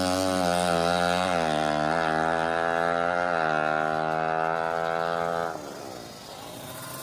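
A 350cc-class drag-racing motorcycle at full throttle down the strip, its engine note climbing and shifting up several times as it pulls away. It fades out about five and a half seconds in.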